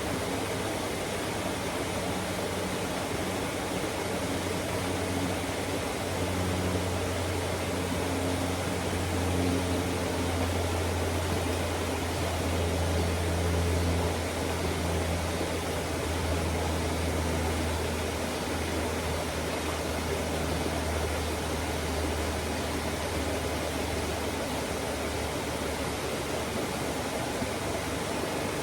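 Steady rushing of flowing water over rocks. A low hum under it swells about a quarter of the way in and fades again over the second half.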